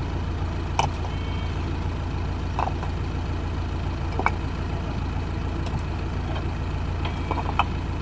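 JCB backhoe loader's diesel engine idling steadily, a low even rumble, with a few short sharp knocks scattered through it.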